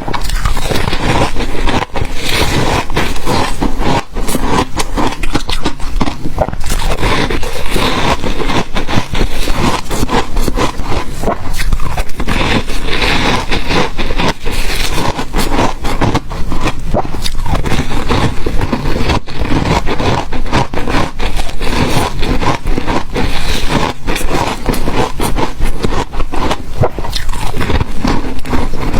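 Ice being bitten and chewed close to the microphone: a steady run of loud, irregular crunching and crackling with no pauses.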